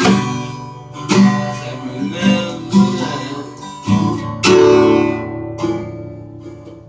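Acoustic guitar strummed in chords, each strum left to ring and fade before the next, with a long held chord about four and a half seconds in.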